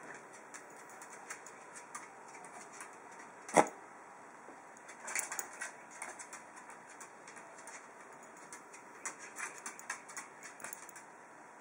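A small dog moving about on a desk: scattered light clicks and taps from its claws and the things it brushes, with one sharp knock about three and a half seconds in and quick runs of clicking around five seconds and again near the end.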